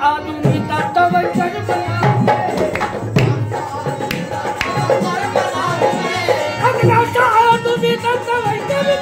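Live qawwali: a lead male singer's wavering melodic voice over two harmoniums, with steady percussion strokes keeping the rhythm.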